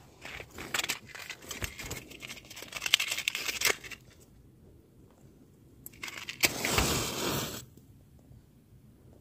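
A matchbox and sticks being handled, with clicks and crinkly rustling, then a match struck about six seconds in and flaring with a hiss for about a second.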